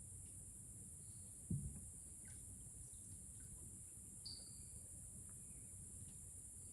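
Steady high-pitched rainforest insect chorus, with a single low knock about a second and a half in and a brief high bird chirp a little after four seconds.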